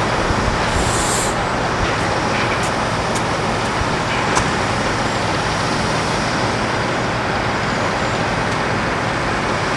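Steady rushing noise of distant engines at an airport, with a faint low hum and a few light clicks.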